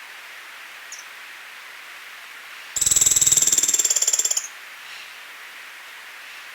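Oriental magpie-robin giving one loud, high-pitched rapid rattling trill about a second and a half long, starting near the middle, over a steady hiss; a faint short chirp about a second in.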